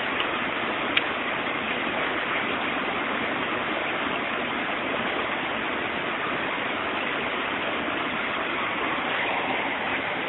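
Shallow rocky stream rushing steadily, with one sharp click about a second in.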